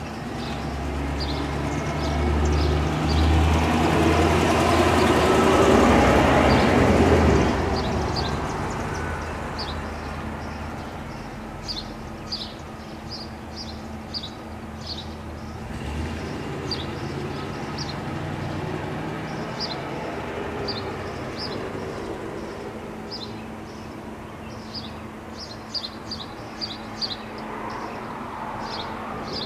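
A vehicle passes, its rumble swelling for a few seconds and then fading, over short high chirps repeated throughout.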